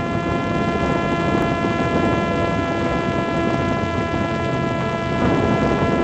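Parrot Disco fixed-wing drone's electric pusher motor and propeller running at high power during the climb after launch, a steady whine at one pitch heard from a camera on the airframe, over a loud rush of wind noise.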